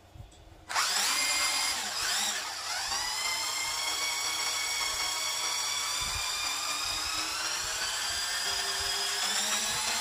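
Electric motor and gear drivetrain of a Wltoys 104311 1/10 RC crawler whining as the wheels are spun up off the ground. It starts suddenly about a second in, rises in pitch over the next two seconds, then holds a high whine that climbs slowly.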